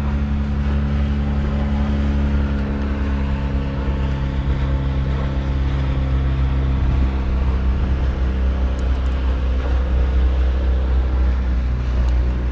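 Boat engine running steadily at low speed, a low hum whose pitch shifts slightly a few times.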